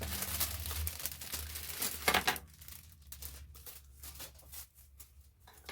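Plastic packaging crinkling and rustling as items are handled, with a sharp crackle about two seconds in, then a few light clicks and taps.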